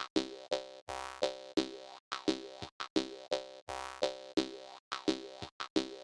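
Jaw harp music: a steady, danceable rhythm of twanging plucked notes, about three a second, with a few quicker notes near the end.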